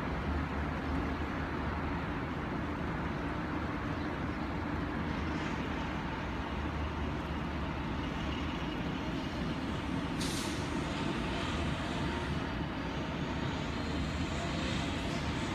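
Steady, distant rumble of city traffic, with one brief hiss about ten seconds in.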